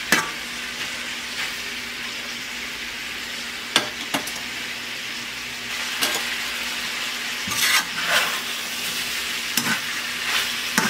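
Chicken and vegetables sizzling steadily in a wok, a little louder from about six seconds in, while a metal spatula stirs them, scraping and knocking against the pan now and then.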